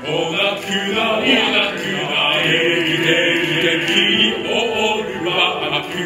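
A male chorus singing in two parts, with long held notes.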